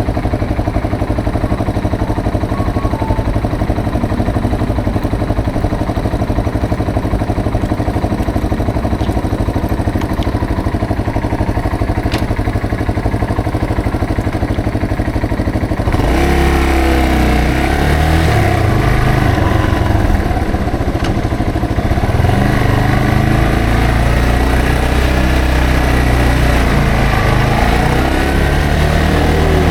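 Yamaha TW225's single-cylinder four-stroke engine, running steadily at low revs for about the first half, then getting louder as the bike pulls away, its revs rising and falling repeatedly through the gear changes.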